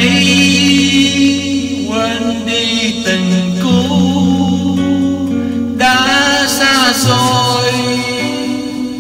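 A Vietnamese song: a singing voice over guitar accompaniment, with sung phrases coming in about two seconds in and again near six seconds.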